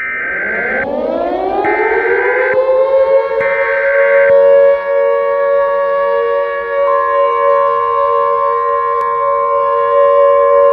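A civil defense siren starting up, its pitch rising over about two seconds and then holding a steady tone. Over its start come three one-second bursts of Emergency Alert System data header tones.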